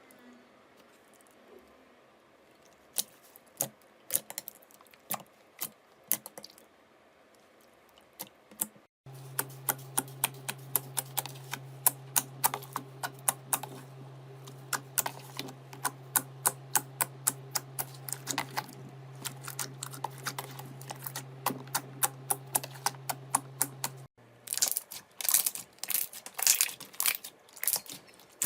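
Slime being squeezed and pressed by hand, making a run of sharp crackling clicks and pops. They come a few a second, with a steady low hum under the long middle stretch, and thicker near the end.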